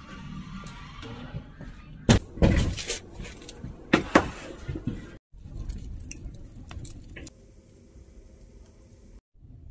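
Fresh huangjing (Polygonatum) rhizomes knocking and clattering as a heap of them is tipped from a wooden tub into a wooden steamer, with a run of loud knocks in the middle. A quieter steady noise follows.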